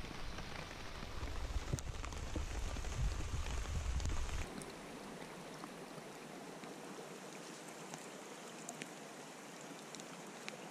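Steady rain falling on the river and the surrounding trees: an even hiss with scattered close drops ticking. A low rumble under it stops about four and a half seconds in, and the rain carries on softer and even.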